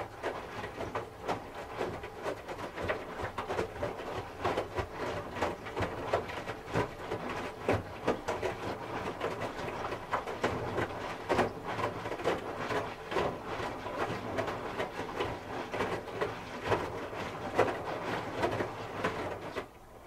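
Hoover H-Wash 300 Plus front-loading washing machine with an inverter motor, tumbling a wet load: clothes flop and slosh in the turning drum over a steady low motor hum, with frequent irregular soft thuds. The drum stops just before the end.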